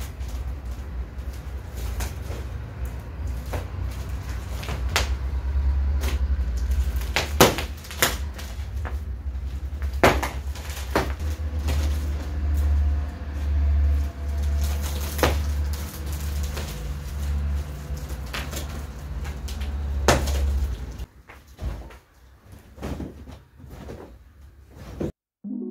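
Plastic shrink-wrap being pulled and peeled off a new mattress: rustling and crinkling broken by sharp crackles and knocks, over a steady low rumble that drops away a few seconds before the end.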